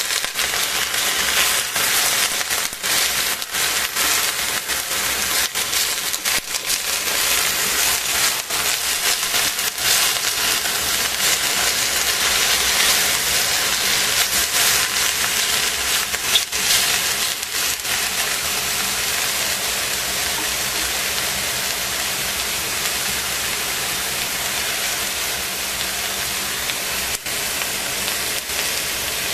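Cabbage, carrot and shimeji mushrooms sizzling as they fry in a stainless steel pot. Over roughly the first half, chopsticks stirring the vegetables add scattered clicks and scrapes. After that the sizzle runs steady and undisturbed.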